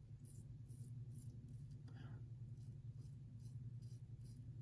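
Faint scratching of a King C Gillette double-edge safety razor cutting lathered stubble in short strokes, about two a second, over a low steady hum.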